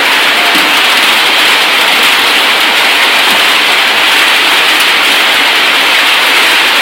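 Heavy rain pouring down, a loud steady sound with no breaks.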